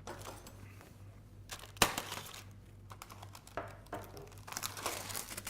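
Paper crinkling as a pan-fried halibut fillet sitting on it is handled, in scattered small crackles with one sharp click about two seconds in, over a low steady hum.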